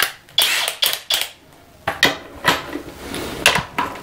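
Irregular metallic clinks and knocks of handling, as two cordless impact drivers fitted with sockets are picked up and set onto lag bolt heads in timber.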